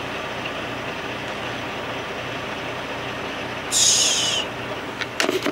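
Steady hum of a semi truck's diesel engine idling, heard from inside the cab, with a faint regular low pulse. A short hiss cuts in about four seconds in and lasts under a second.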